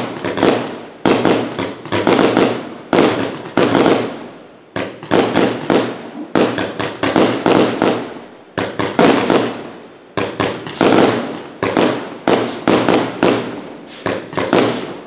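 Alessi 1113 S 150-shot fireworks cake firing its red-rain shots in quick succession, about one to two a second. Each shot is a sharp bang that fades over about half a second, sometimes two close together.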